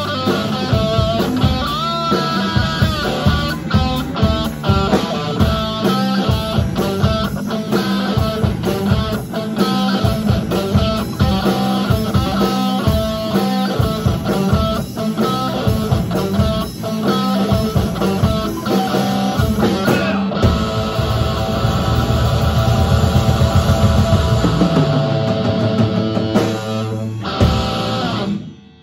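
A live rock band plays loudly on electric guitars and drums. About two-thirds of the way through, the drum hits stop and the guitars hold a ringing chord, then the song cuts off suddenly near the end.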